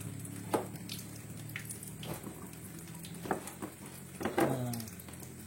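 Knife chopping terung Dayak (Sarawak eggplant) on a cutting board: a handful of soft, irregularly spaced knocks as the blade goes through.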